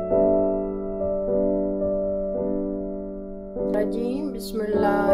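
Background piano music, slow chords struck and held. From about three and a half seconds in, clicks and a short voice-like sound come in over it.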